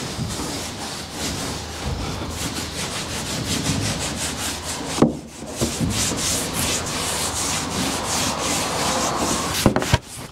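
Rag soaked in acetone scrubbed back and forth over the bare fibreglass inside a boat's transom: a steady run of quick rubbing strokes, with a short pause about five seconds in. This is the surface being degreased and de-dusted before fibreglass matting goes on.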